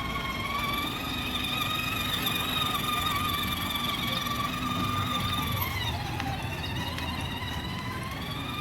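Electric motor whine of a children's ride-on toy car, a steady high hum over the rumble of its wheels on the ground. About six seconds in the whine drops in pitch as the car slows, then rises again near the end as it picks up speed.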